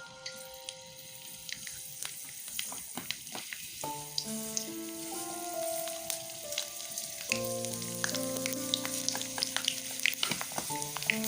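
Food frying in hot oil: a steady sizzle with many small pops and crackles. Soft background music with held notes comes in about a third of the way through.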